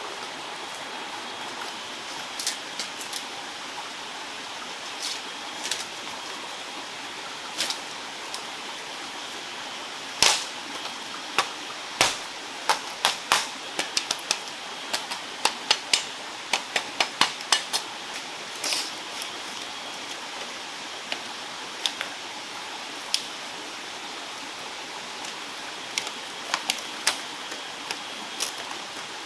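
Split bamboo slats clacking and knocking against one another as they are handled and laid flat, in a dense run of sharp knocks midway and scattered single clicks elsewhere, over the steady rush of a forest stream.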